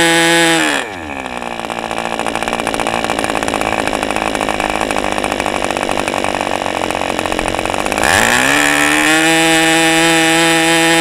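Two-stroke model-airplane glow engine turning a propeller at high revs, running on a counterfeit OS #8 glow plug. About a second in its revs drop sharply and it runs lower and rougher; near eight seconds it climbs back to its earlier steady high pitch.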